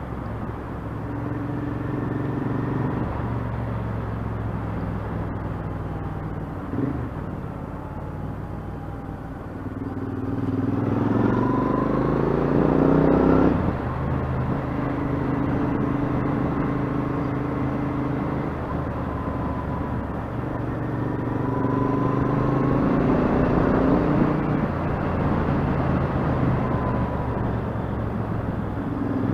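Royal Enfield Interceptor 650's parallel-twin engine running under way, with wind noise on the microphone. The revs climb about ten seconds in and drop abruptly a few seconds later, then climb again later on.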